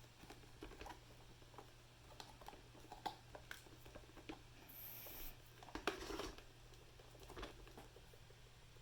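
Faint handling noises from a small coffee maker: scattered light taps and clicks, with a brief rustle about five seconds in, over a steady low hum.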